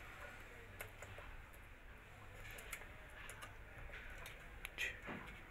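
Faint, scattered clicks and ticks of a small screwdriver and wires being worked at plastic screw terminals, the loudest click near the end, over a low steady hum.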